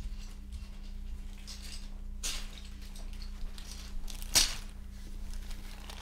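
Rustling and handling noises as things are moved about at a desk, with a sharp, louder rustle or clack about four and a half seconds in, over a steady low hum.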